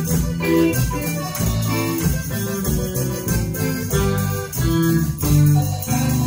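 Live band of accordion, electric guitar, bass guitar and drum kit playing an instrumental passage with a steady beat.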